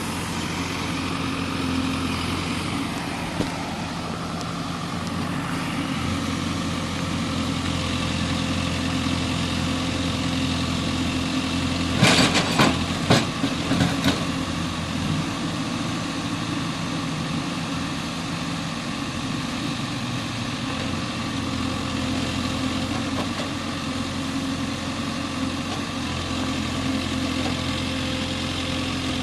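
Heavy diesel engine running steadily at low revs, with a short cluster of loud metallic clanks about halfway through.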